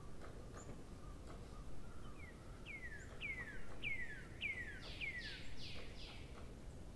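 A bird calling: a run of about eight falling whistled notes, a little under two a second, starting about two seconds in. The last few notes come out harsher and fuller. Faint ticks and a steady low background noise lie underneath.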